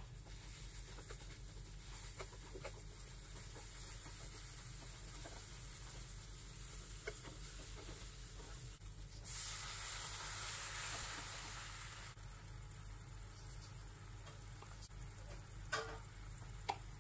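Sliced onions frying in oil in a nonstick pan, stirred with a wooden spatula that scrapes softly against the pan. About nine seconds in, a louder sizzling hiss rises for about three seconds, and two sharp taps come near the end.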